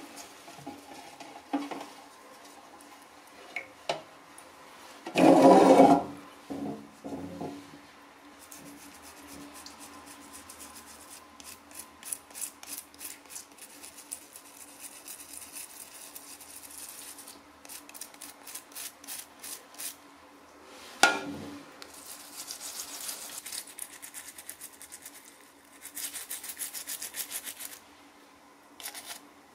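Small brush scrubbing the wet shell of a baby map turtle, in runs of quick back-and-forth strokes. There is a loud, fuller handling noise about five seconds in and a sharp knock a little after twenty seconds.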